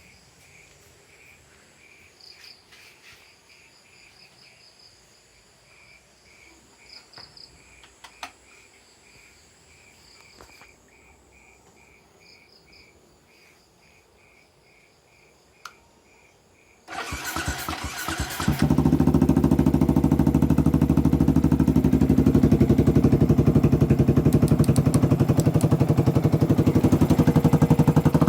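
Crickets chirping faintly and steadily, then about 17 seconds in a Yamaha New Vixion's 150 cc single-cylinder four-stroke engine is started, catching after a brief moment and settling into a loud, even idle through its exhaust fitted with a three-setting DB killer insert.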